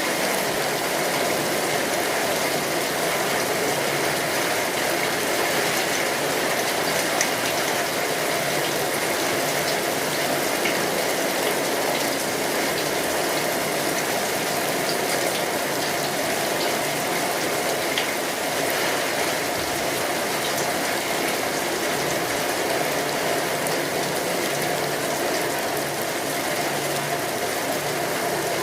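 Steady rain falling: an even hiss with scattered small ticks of drops striking.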